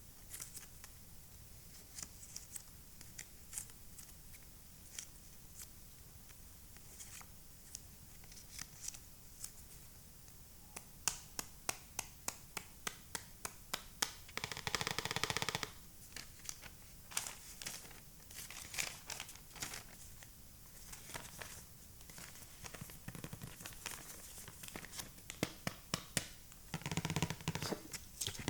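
Small plastic toy pieces being handled and set down: many light clicks and taps, some crinkling of packaging, with a short buzzing tone about halfway through and another near the end.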